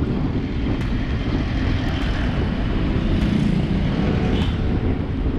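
Steady wind rush and low rumble on the microphone of a bicycle's handlebar camera while riding, with motor traffic passing close by.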